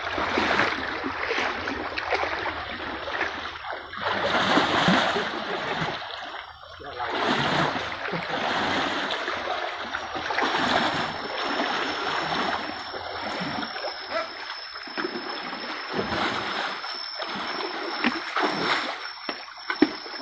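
Sumatran elephants splashing and wading in shallow river water, in uneven swells of sloshing. A thin, steady high whine comes in about halfway through.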